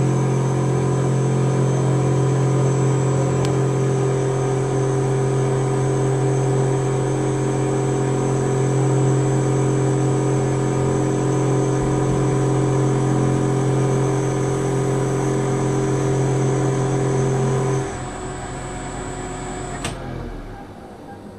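Spectral MM milling machine running steadily with its end-mill spindle turning: a loud, even motor hum with a thin high whine. About 18 seconds in, the main hum stops abruptly; about 20 seconds in, the high whine cuts off too, leaving a softer running sound.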